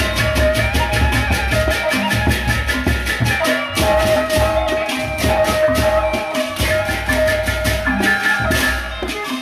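Lombok gendang beleq ensemble playing: many pairs of small hand cymbals clash in a fast, steady rhythm over large barrel drums, with a ringing gong-like tone held beneath.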